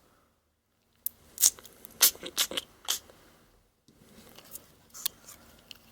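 Small sharp clicks and short scrapes of the opened smartwatch's parts being handled, about five clicks in two seconds after a brief hush, with softer rustling and one last click near the end.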